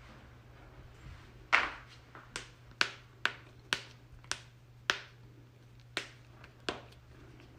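Human joints cracking in a quick series of about nine sharp pops, roughly two a second, the first the loudest.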